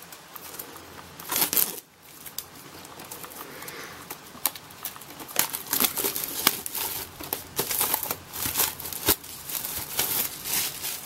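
Plastic shrink-wrap being torn and peeled off a Blu-ray steelbook case and crumpled in the hand: a run of crinkling and crackling, with a louder burst about a second and a half in.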